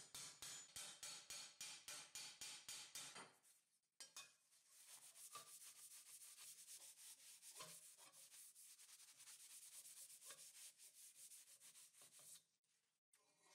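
A hammer striking a 1.5 mm mild-steel gauntlet plate on a stake, about four blows a second, stopping after about three seconds. After a short pause comes a steady run of quick hand-sanding strokes along the plate's edge, which stops near the end.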